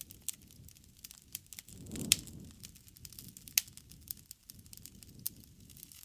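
Wood campfire crackling, with a steady scatter of small snaps and a few louder sharp pops, the loudest about two seconds in and again near three and a half seconds. A soft low rush of flame swells briefly around two seconds in.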